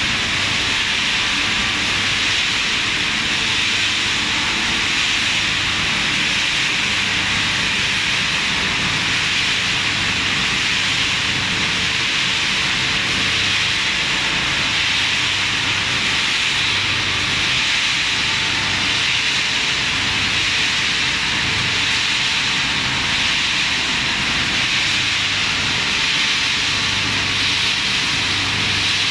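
Hard-plastic washing line running: a steady, loud machine hiss of motors, conveyors and washing units, with a low hum underneath.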